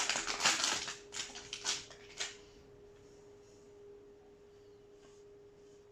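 Crinkling and rustling of a foil trading-card booster pack being torn open and its cards handled, in quick uneven rustles for about the first two seconds. After that only a faint steady hum remains.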